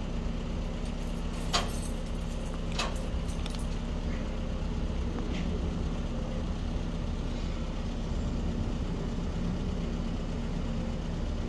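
A vehicle engine idling steadily, a low even hum, with a couple of sharp clicks in the first few seconds.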